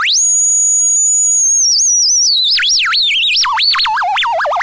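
Photo theremin's pure electronic tone, its pitch set by the light on its sensor: it jumps to a very high steady whistle, then from about two seconds in slides down and warbles rapidly up and down over a wide range.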